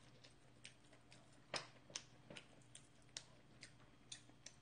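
Near silence with faint, irregular light clicks and taps, a dozen or so spread through, the loudest about a second and a half in.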